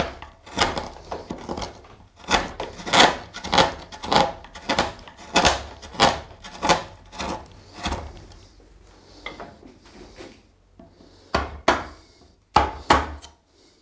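Hand-held carving gouge cutting into a wooden sculpture in short strokes, about two a second, then going quieter for a few seconds. Near the end a wooden mallet drives the gouge with several sharp knocks.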